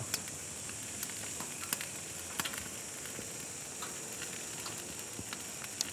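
Oiled duck meat sizzling faintly on the hot grate of a gas grill, with a few light clicks as bamboo skewers of teal breast and green onion are laid down on the grate.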